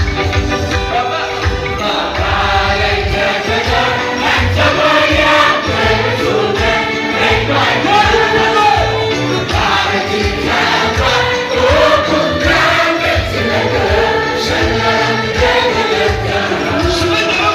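Gospel worship music with a group of voices singing together over a steady low beat.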